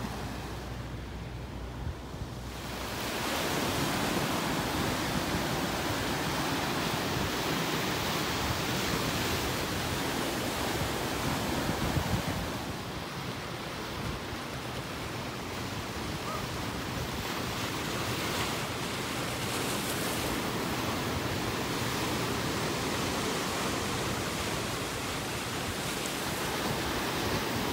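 Sea surf breaking and washing over a rocky shoreline: a steady rushing noise that gets louder about two and a half seconds in and dips briefly midway.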